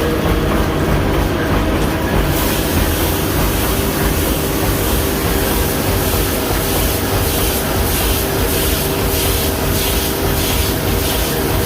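Large gear teeth meshing and grinding under load: a loud, steady mechanical din with a steady whine, turning hissier about two seconds in, with a regular pulsing in the hiss in the second half.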